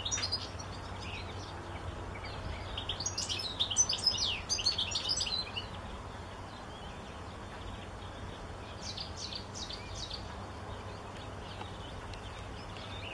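European goldfinch singing: a burst of rapid, high twittering notes a few seconds in, then a fainter, shorter phrase later on, over a steady low rumble of background noise.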